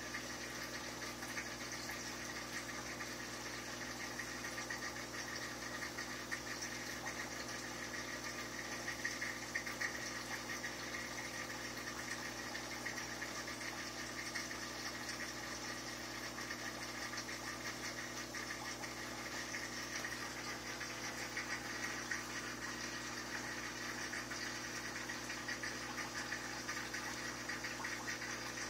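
Steady hum of a small motor with a constant hiss, unchanging throughout.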